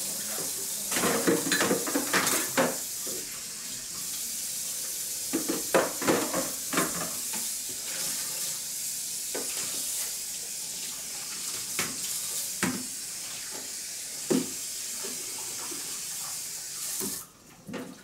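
Kitchen tap running steadily into a sink while dishes and pots clatter and knock now and then; the water shuts off near the end.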